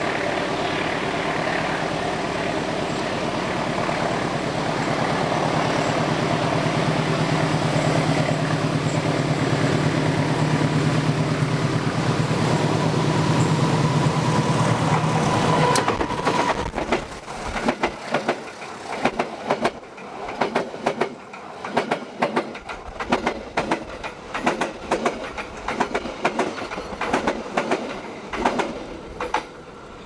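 Passenger train passing close by: the diesel locomotive's steady engine drone grows louder as it approaches, then gives way suddenly about sixteen seconds in to a rapid, uneven clatter of the carriages' wheels over the rail joints, which fades near the end as the last coach goes by.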